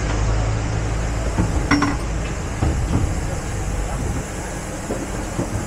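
Steady low rumble and hiss of a parked airliner's cabin ventilation at the boarding door, with a short ringing clink a couple of seconds in and a few light knocks.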